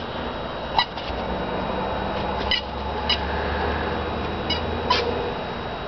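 Rubber squeaky toy squeaking in short, sharp bursts, five in all, as a German shepherd bites down on it in her mouth.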